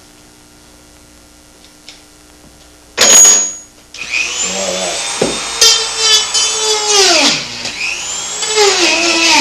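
Dremel rotary tool with a sanding bit, sanding the entrance hole of a dried gourd. A short loud burst about three seconds in, then the tool starts a second later with a high whine that rises in pitch as it spins up, and its pitch sags and recovers twice as the bit bears on the gourd.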